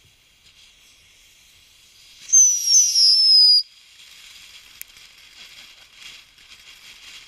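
Whistling firework going off: two overlapping shrill whistles, each sliding slightly down in pitch, start about two seconds in, last about a second and a half and cut off sharply. A faint steady hiss runs underneath, with a single click a little later.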